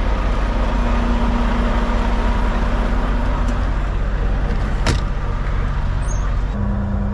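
Semi truck's engine running with a steady low rumble and a steady hum. There is a single sharp click about five seconds in, and the hum drops slightly in pitch near the end.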